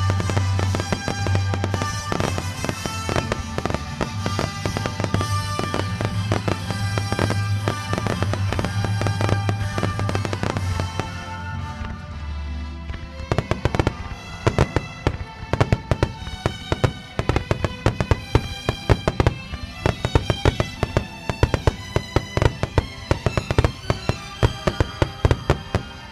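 Fireworks display set to music: aerial shells bursting with sharp bangs over a recorded soundtrack, which carries a heavy, sustained bass for roughly the first half. From about halfway the bursts come thick and loud, about two bangs a second, then stop near the end.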